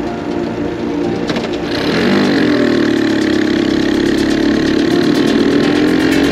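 Motorcycle engine running on the move. It steadies for about two seconds, then gets louder, and its pitch dips briefly before climbing steadily as the bike accelerates.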